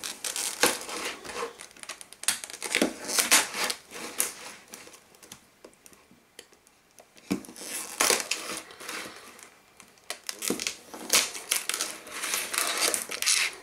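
Hobby knife cutting round the edge of a stiff clear plastic blister pack, the plastic crackling and crinkling as it is sliced and flexed. The crackles come in irregular bursts with a short lull about halfway through.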